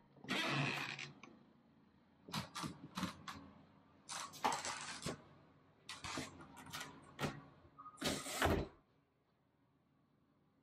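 A door's lever handle, latch and lock being worked and the door moved: a run of separate clicks, rattles and scrapes, the loudest in the first second and about eight seconds in.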